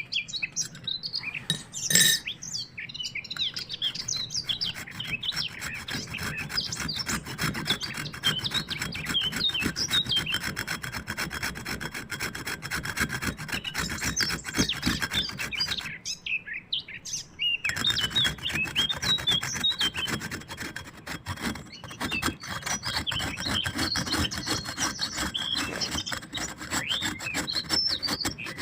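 Rapid, continuous scraping strokes, like something being grated or rasped by hand, with a short break about sixteen seconds in. Birds chirp in the background.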